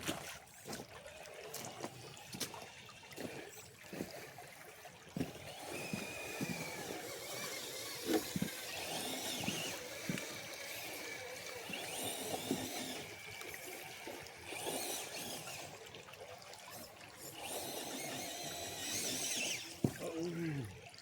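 Creek water trickling, with short spells of high electric motor whine from RC crawler trucks working over rocks, and scattered light knocks.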